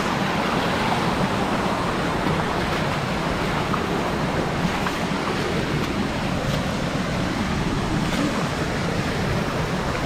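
Steady rush of a small waterfall cascading over rocks in a jungle stream.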